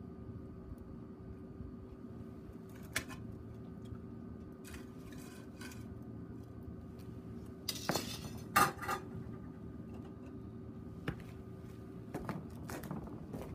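A frying pan knocking and clinking against the wire grate of a charcoal shichirin as it is set down and shifted on it. There are a few separate metal knocks, the loudest pair a little past the middle and a small cluster near the end.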